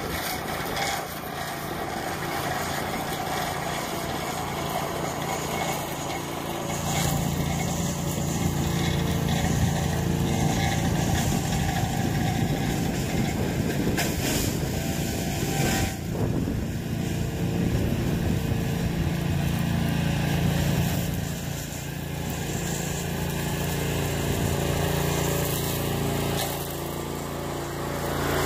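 Small engine of a homemade walk-behind brush mower running steadily. It gets louder about seven seconds in and eases off briefly twice later.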